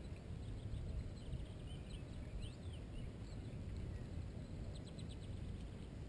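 Steady wind noise on the microphone in open grass, with faint bird chirps about two seconds in and a quick run of high notes near the end.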